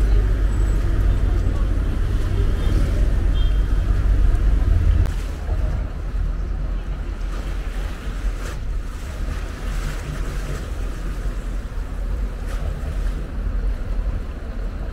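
Steady low rumbling noise, heavier for about the first five seconds and then dropping a little, with faint voices underneath.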